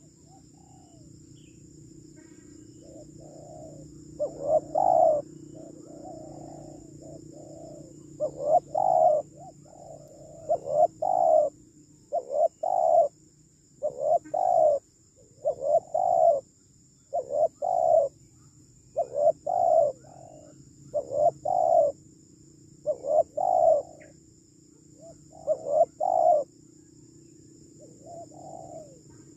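Spotted dove (tekukur) cooing: a run of short two- or three-note phrases, repeated about every one and a half to two seconds from a few seconds in, over a steady high insect trill.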